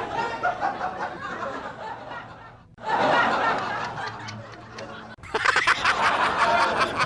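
Studio audience laughing, as a string of spliced laugh-track clips. The laughter dies away and starts again suddenly twice, about a third of the way in and again near the end.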